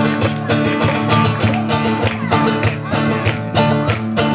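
Small live band playing an instrumental passage: strummed acoustic guitar over cajón beats and electric bass, in a steady rhythm.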